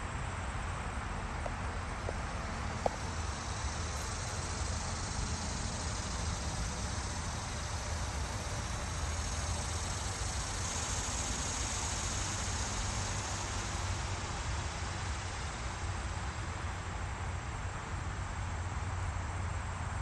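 Steady outdoor background noise, a low rumble under a broad hiss, with a higher hiss swelling through the middle and a single sharp click about three seconds in.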